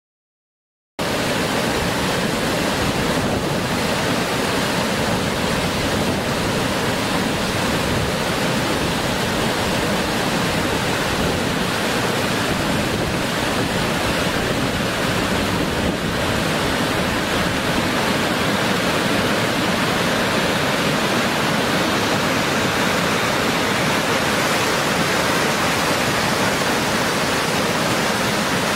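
Waterfall in flood after heavy rain: a steady, loud rush of high water, starting abruptly about a second in.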